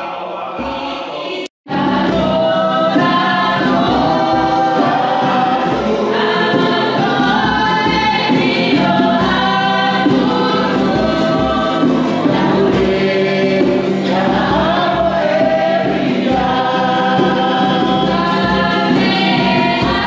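Church congregation singing a hymn together, accompanied by a strummed ukulele keeping a steady beat. The sound cuts out briefly about a second and a half in, then the singing carries on.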